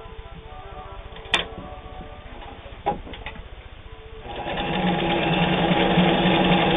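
Vogue Stitch home sewing machine: two sharp clicks, then about four seconds in the machine starts sewing a stretch stitch and runs steadily.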